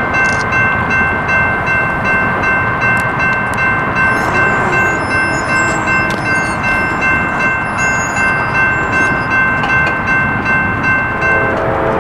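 Safetran Type 2 electronic railroad crossing bell ringing in rapid, evenly repeated dings while the crossing gates lower, cutting off near the end once the gates are down. Just before the end, a locomotive chord horn starts sounding.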